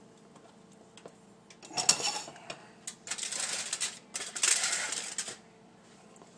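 Aluminium foil lining a baking tray crinkling in three bursts as it is bent and folded down by hand.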